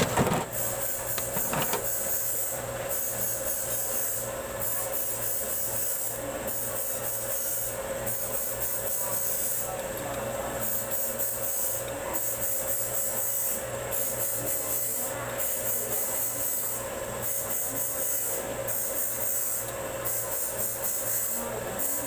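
Steady background hum and hiss, with a couple of sharp clicks of metal doorknob parts being handled within the first two seconds.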